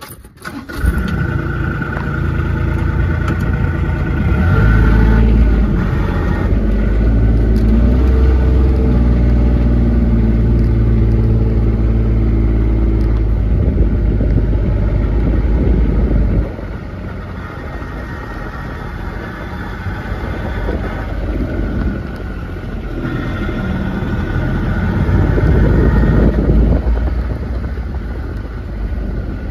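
A motor vehicle's engine running, starting about a second in and rising in level. It drops off suddenly about sixteen seconds in, then builds again near the end, as with a vehicle driving and changing speed.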